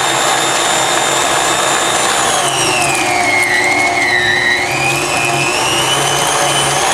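KitchenAid stand mixer running at speed 8 with its metal food grinder attachment, grinding cubed brisket through the coarsest die: a steady motor whine that sags in pitch for about two seconds in the middle as meat is pushed in, then climbs back up.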